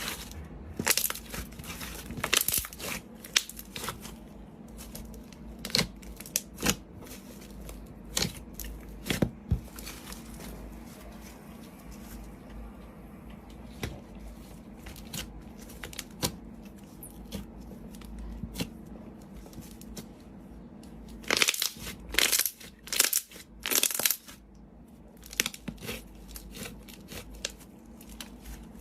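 Slime being squeezed and poked by hand, giving irregular crackles, pops and squishes, with a flurry of louder crackles after about twenty seconds.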